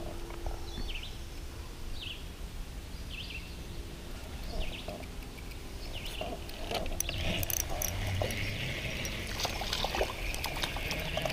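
Outdoor ambience on the water: short, high chirps repeat about once a second. About seven seconds in, water splashing and dripping with small clicks takes over.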